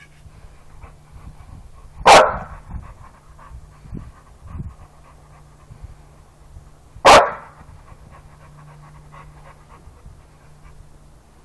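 Dog panting, broken by two loud single barks, about two seconds in and again about five seconds later.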